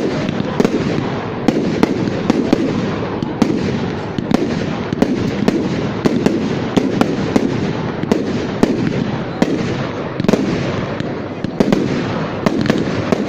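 Fireworks going off continuously: many sharp cracks and bangs, often several a second, over a steady rushing din.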